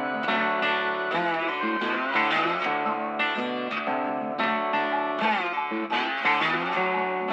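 Background music: guitar playing plucked notes, with several notes bent up and down in pitch.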